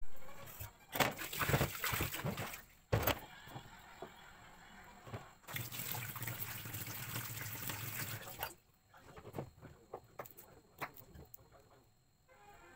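Knocks of a heavy granite mortar being handled on a steel sink's cutting board, then tap water running steadily into the mortar for about three seconds before stopping, followed by faint small crackles of garlic cloves being peeled by hand.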